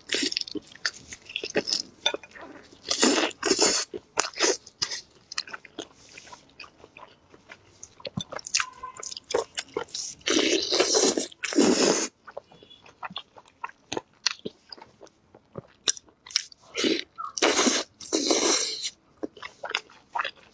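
Close-miked eating of sticky glazed cola chicken wings: biting, wet chewing and smacking, heard as many quick clicks. There are a few longer, louder noisy spells: about three seconds in, a long one from ten to twelve seconds in, and another near the end.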